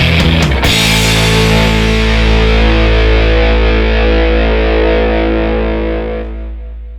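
Distorted electric-guitar rock music ends on a long held chord that rings and fades away near the end.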